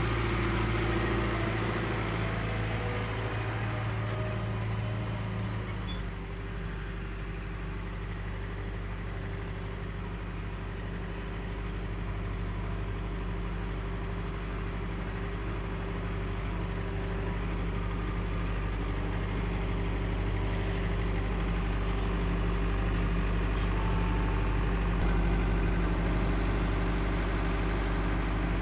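John Deere 4066R compact tractor's diesel engine running steadily as the tractor drives, towing a log splitter. The engine note shifts about six seconds in and grows a little louder near the end.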